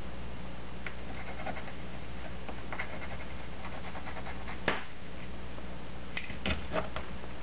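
Liquid flux crackling and sizzling on coax braid under a soldering iron as the braid is tinned, with a steady electrical hum underneath. A sharp click comes about two-thirds of the way in, and a few more clicks near the end.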